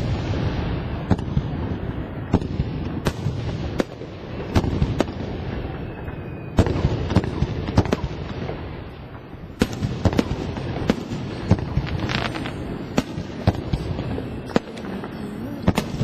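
Fireworks show: a string of sharp bangs from bursting shells at irregular intervals, over a continuous low rumble.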